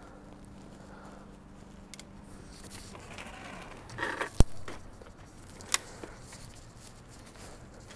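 Phone handling noise: fingers rubbing on the phone, with a few sharp clicks, the loudest about four and a half seconds in.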